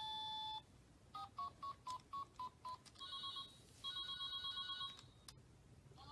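Electronic beeps from a child's toy phone as its buttons are pressed. A held tone ends just after the start. Then comes a quick run of about nine short beeps, about five a second, followed by two longer electronic ringing tones and a single sharp click near the end.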